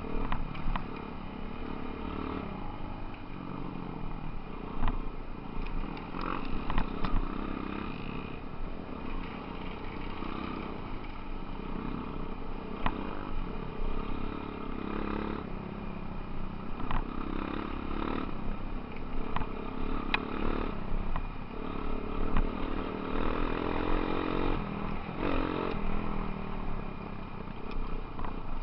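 Off-road motorcycle engines running and revving as the bikes ride a bumpy dirt trail, with scattered sharp knocks and clatter.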